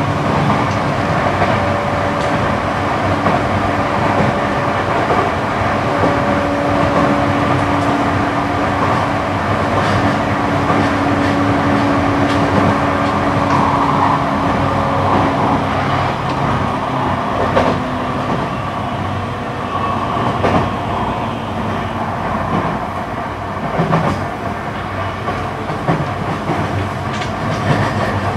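In-cabin running noise of a JR East E235-series electric train's motor car cruising at speed: a steady rumble of wheels on rail with a steady hum from the SiC-VVVF inverter and traction motors. The hum fades a little past halfway, and a few clicks from rail joints come in the second half.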